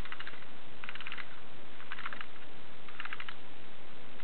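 Tin toy airplane's mechanism clicking in short rattling bursts of rapid clicks, about once a second, over a steady hiss.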